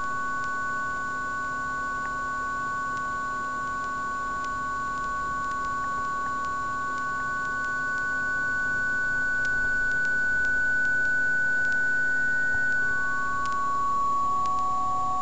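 Synthesis Technology E350 Morphing Terrarium oscillator, played from a ribbon controller through a VCA. It gives long, steady, pure-sounding held tones, two pitches sounding together, and moves to a lower note near the end.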